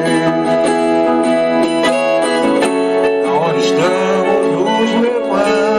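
Instrumental passage of a song, led by plucked guitar with held, gliding melody notes over it.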